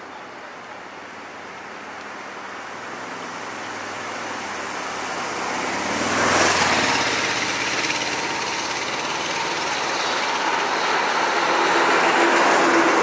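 Road traffic passing close by: engine and tyre noise swells to a peak as a vehicle goes past about six seconds in. Then a lorry's engine grows louder as it approaches near the end.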